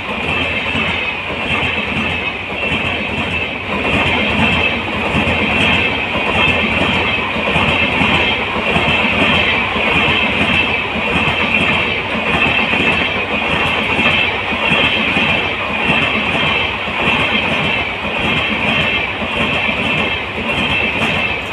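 Coaches of a Vande Sadharan passenger train rolling past close by, their wheels clattering steadily on the rails, with a steady high-pitched ring above the rumble.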